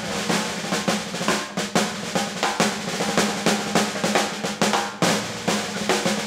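Band music driven by drums: busy snare-drum rolls and rimshots over bass drum, with a held low note underneath.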